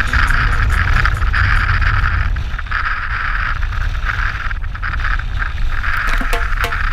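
Wind buffeting the microphone of a camera mounted on a moving wingfoil rider, a steady low rumble, over the hiss of water rushing past the board.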